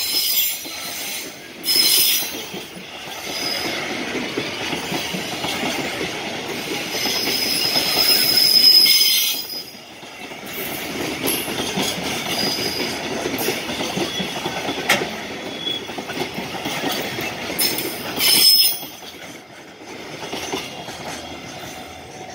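A long freight train of container wagons loaded with 5-ton containers rolling past at speed. The wheels rumble and clatter on the rails, with spells of high-pitched wheel screech. The sound falls away near the end as the last wagons go by.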